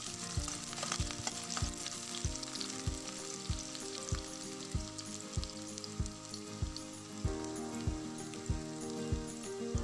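Sliced onions sizzling and crackling as they fry in hot oil in a metal wok. Under it runs background music: a steady low beat about every 0.6 s with sustained tones that change every few seconds.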